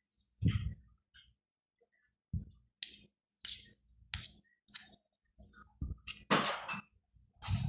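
Metal spoon scraping and clinking against a ceramic plate while scooping chocolate cake spread with Nutella: a string of short scrapes and clinks, one near the start and then several more in quick succession from about two seconds in.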